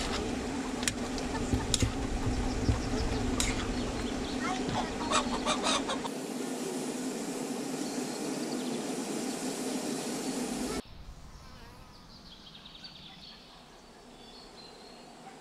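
A metal ladle stirring in a cooking pot on a wood fire, clinking against the pot several times in the first few seconds, with chickens clucking in the background. About eleven seconds in, it gives way to a much quieter outdoor background with faint birdsong.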